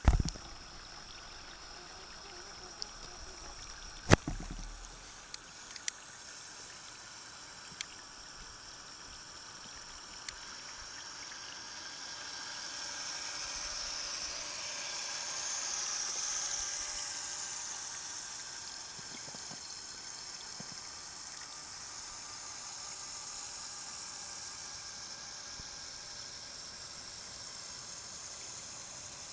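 Lego Technic RC boat running on water: steady water noise that swells and fades in the middle, with two sharp knocks in the first few seconds and a few light ticks.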